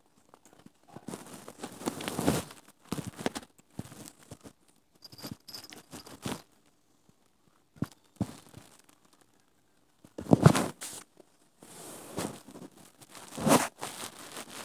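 Irregular rustling and scraping from a handheld phone rubbing against a cat's fur and the bedding, with the loudest scrapes about ten seconds in and near the end.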